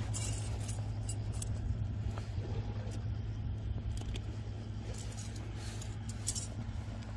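Small clicks and clinks of ring-handled metal scissors handled against rock, over a steady low mechanical hum. A sharper click comes about six seconds in.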